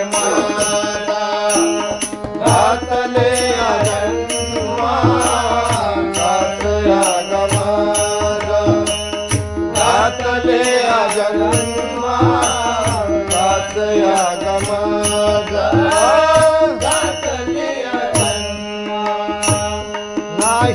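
Marathi abhang accompaniment: a harmonium plays the melody over a steady drone, with tabla strokes and small brass hand cymbals (taal) clashing in an even beat.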